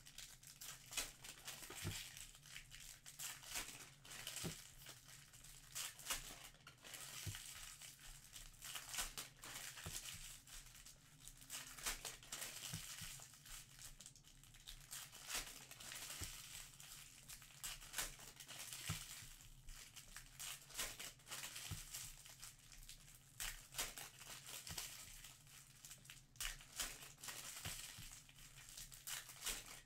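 Trading-card pack wrappers crinkling and tearing as packs are opened, with cards handled and shuffled. The rustling is continuous and broken by many short, sharp clicks.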